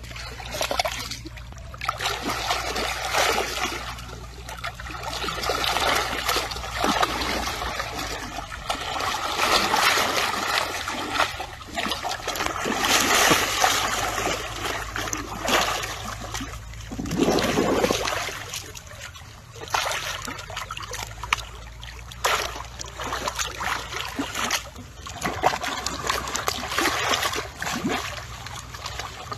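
Muddy water splashing and sloshing as a baby elephant rolls in a shallow pool, coming and going in irregular swells.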